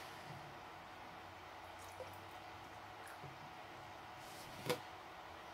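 Faint handling sounds from working a plant into a hydroponic container: a few light clicks and soft knocks, with one sharper click near the end.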